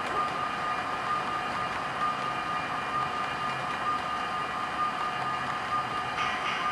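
HO scale model coal hopper cars rolling past on the track, their wheels making a steady clatter over a constant high hum. About six seconds in, a brighter, rhythmic clicking begins.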